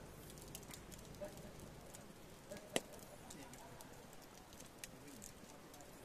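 Wood fire crackling in a metal fire pit: scattered sharp pops and snaps over a low steady background, with one louder pop about three seconds in.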